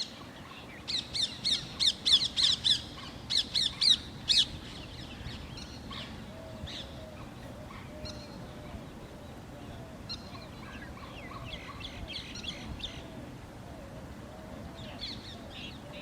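Several birds calling: a loud run of quick, high chirps in the first few seconds, then quieter chirping over a long series of lower repeated calls.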